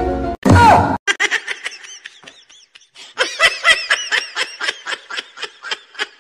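A person laughing in quick, high-pitched bursts, with a short lull about two seconds in before a longer run of laughter. It follows a brief bit of music and a loud, short sound with a falling pitch near the start.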